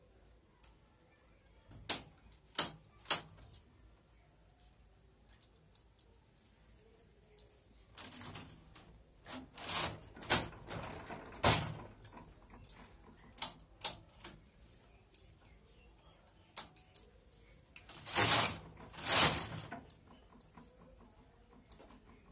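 Hand-operated flatbed knitting machine: a few sharp clicks of metal needles and hand tools about two seconds in, then the carriage sliding along the needle bed in noisy, clattering passes of a second or two each. The two loudest passes come close together near the end.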